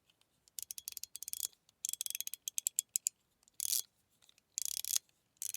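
WJ Creation mechanical fidget slider being slid back and forth: two runs of rapid light clicks, then three short sliding swishes. The slide has no end-of-travel pop.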